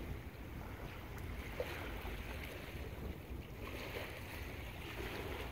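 Wind buffeting the microphone over the steady wash of bay water against shoreline rocks.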